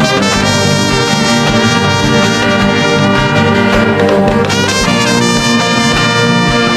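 Background music with brass instruments such as trumpet and trombone playing sustained chords over a steady beat.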